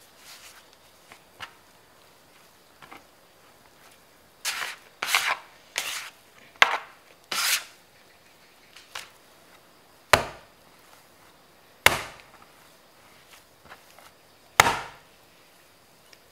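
Plastic bench scraper scraping sticky bread dough off a wooden board in about five quick strokes, then the dough slapped down hard onto the board three times, a couple of seconds apart: hand kneading by slap and fold.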